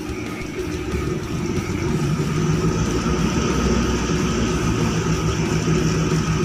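Engine of a tugboat pushing a sand barge in to berth: a low steady rumble, with a hum that grows louder about two seconds in.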